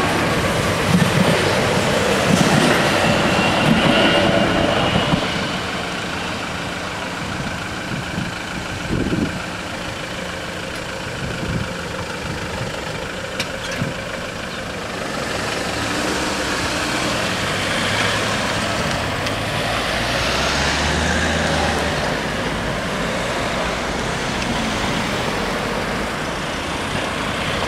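A TER regional train passing over a level crossing, its rumble on the rails dying away about five seconds in. Later, queued cars start up and drive across as the barriers open.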